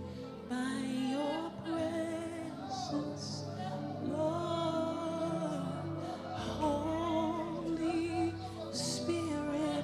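Slow worship music with a woman singing, long notes held and wavering with vibrato over sustained low chords.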